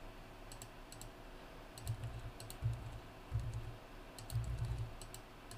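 Faint computer keyboard typing in short bursts of keystrokes, with a few low, dull thumps among them.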